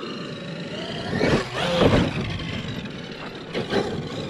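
Traxxas X-Maxx electric RC monster truck driving on dirt: its brushless motor whines, rising and falling with the throttle over the noise of tyres on loose dirt, loudest about two seconds in.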